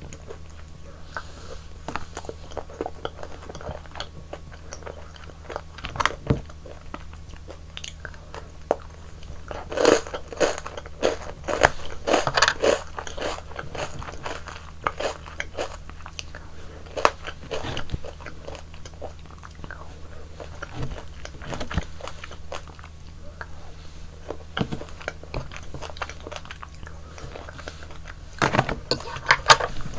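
Close-miked eating of frozen yogurt ice cream: crunchy bites and chewing in irregular clicks, thickest in bursts about ten seconds in and near the end, over a steady low hum.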